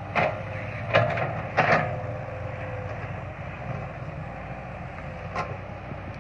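Caterpillar excavator's diesel engine running steadily under digging work, with a few short knocks and clanks from the working machine: three in the first two seconds and one more past five seconds.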